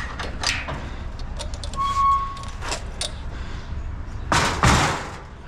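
Scrap metal being handled and loaded: scattered clanks and knocks, a short squeak about two seconds in, and a loud scrape a little after four seconds, over a steady low rumble.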